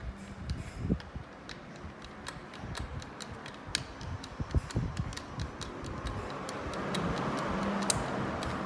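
Light metallic clicks and ticks of the gears, synchronizer and shift fork of a Volkswagen manual transaxle shifting against each other as they are worked loose by hand. In the last two seconds a steady low hum rises under the clicks.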